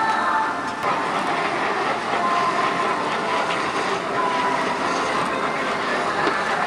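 Chicken skewers sizzling and crackling on a hot wire grill: a steady dense hiss with small pops.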